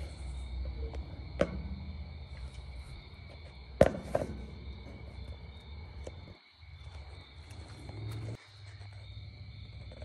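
Crickets trilling steadily at two high pitches, over a low rumble. Two sharp knocks come about a second and a half and about four seconds in, the second the loudest.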